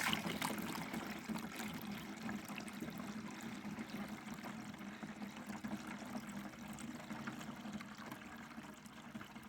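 Birch sap poured in a steady stream into a container. It starts suddenly and runs on with a ringing note from the filling vessel.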